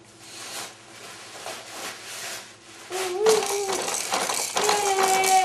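Rustling and small clicks, then from about three seconds in a baby's voice making long, drawn-out vocal sounds.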